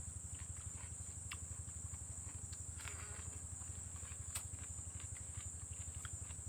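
Steady high-pitched insect drone over a low, fast, even pulsing, with faint small clicks and scrapes of food being picked up by hand from a plate.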